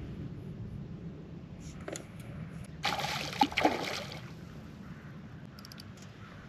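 A hooked bass splashing at the surface for about a second, roughly midway, as it is reeled toward the boat, over a steady low rumble.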